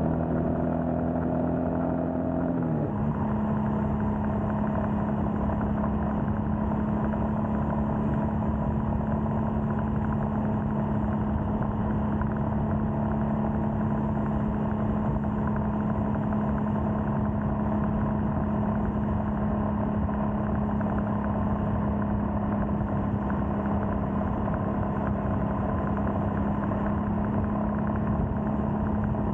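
Royal Enfield Scram 411's air-cooled single-cylinder engine under way. Its note rises slightly, drops in pitch about three seconds in as it shifts up, then holds a steady cruise over a constant rush of road noise.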